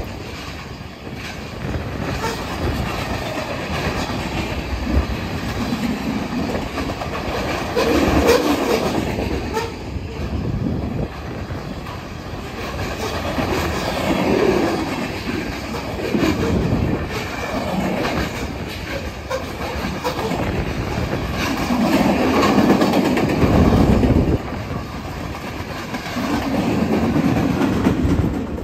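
Freight cars of a short train rolling past at about 55 mph: steel wheels running on the rails in a continuous rumble that swells and eases as each car goes by, falling away right at the end as the last car passes.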